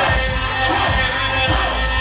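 Loud, bass-heavy hip hop music playing over a club sound system, with vocals in the mix.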